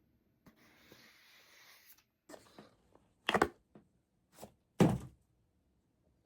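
A short rustling noise, then a run of knocks and thumps, the two loudest a second and a half apart, typical of equipment being handled close to the microphone.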